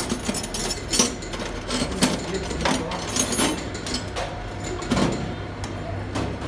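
Hand tools knocking and clicking against the metal body of an inline diesel injection pump clamped in a vise: a handful of sharp metallic clicks about a second apart, over a steady low hum.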